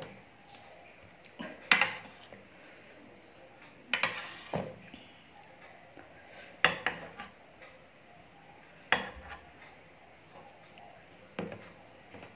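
Metal spoon clinking and scraping against a stainless steel compartment tray as rice and curry are mixed and scooped: sharp clinks about every two seconds, some in quick pairs.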